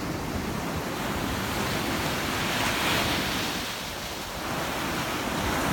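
Sea surf breaking and washing against rocks on a beach: a steady rush that swells about halfway through, eases, then builds again near the end.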